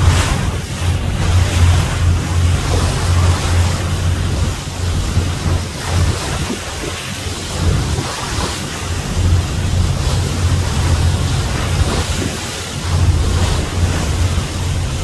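Wind buffeting the microphone on the open deck of a ferry under way, over the rush of sea water along the hull and a low, steady drone from the ship's engine. The wind comes and goes in uneven gusts.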